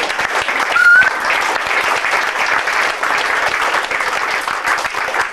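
Roomful of people clapping, dense and steady throughout. A short high rising whistle cuts through the clapping about a second in, at its loudest moment.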